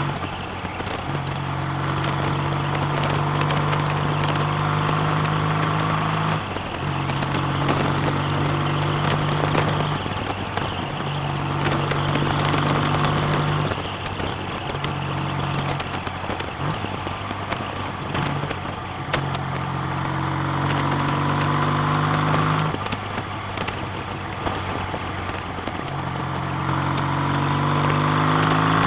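BSA A65 650cc parallel-twin engine running on the road, with wind rush; its note repeatedly drops away and returns, several times in quick succession part-way through, and climbs in pitch near the end as the bike speeds up.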